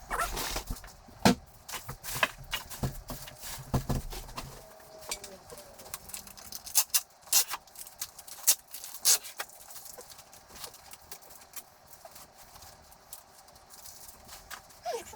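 Handling noise from unpacking a new 3D printer: scattered sharp clicks and knocks as parts and packing pieces are taken out and set down. The handling is denser, with some low rumble, for the first few seconds, and there is a flurry of clicks about seven to nine seconds in.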